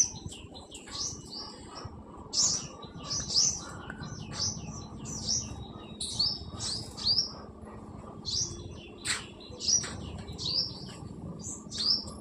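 Birds chirping: short, high calls repeating in quick runs, with brief gaps between groups.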